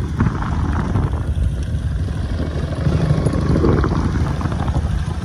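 Wind rushing over a helmet-mounted microphone on a moving motorcycle, with the motorcycle's engine running low and steady beneath it.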